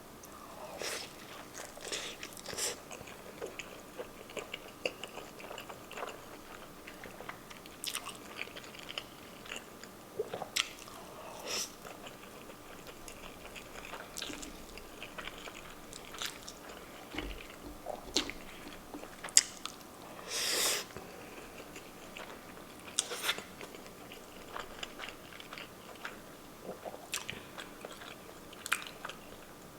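Close-miked eating: chewing and biting a mouthful of corned beef hash wrapped in soft fried egg, with scattered small wet clicks and smacks and one louder burst about twenty seconds in.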